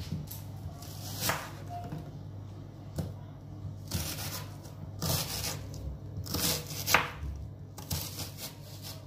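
Kitchen knife slicing through a raw onion and knocking on a wooden cutting board in several irregular cuts, the sharpest about seven seconds in. A steady low hum runs underneath.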